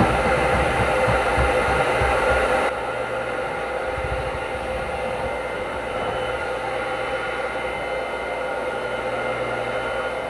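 Handheld hot-air blower running steadily, a blowing hiss with a constant motor whine, as it heats the vehicle's painted panel to ready the surface for the emblem's adhesive. It drops a little in level a few seconds in.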